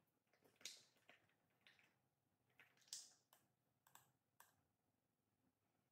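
Near silence with a scatter of faint soft clicks and wet taps, two a little louder, as thick sourdough starter is poured from a glass bowl into a glass jar.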